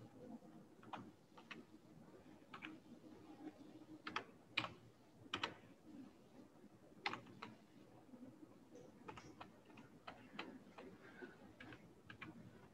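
Faint computer keyboard keystrokes: a dozen or so single key presses, spaced unevenly, as letters are typed one at a time.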